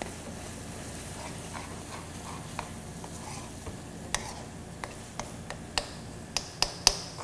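A spatula stirring shredded tilapia through hot caramel in a nonstick pan: the caramel sizzles steadily, with scattered sharp taps and clicks from the stirring that come more often in the second half.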